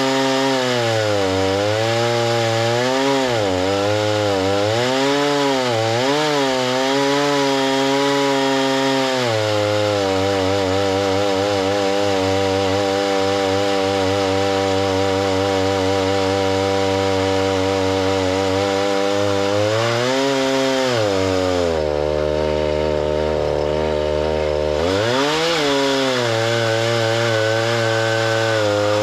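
Gas chainsaw running under load while milling lumber. Its pitch wavers up and down for the first several seconds, then holds steady. About 22 seconds in it drops to idle for a few seconds, then revs back up.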